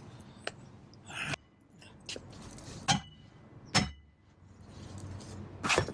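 Hammer blows on a cut steel roof-support bracket, knocking the piece loose: about five sharp metallic strikes, the loudest a little under four seconds in, some leaving a short ring.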